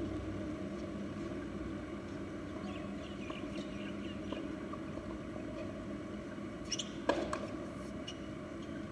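Steady background noise of an outdoor tennis court, with faint high chirps in the middle and a couple of sharp knocks about seven seconds in.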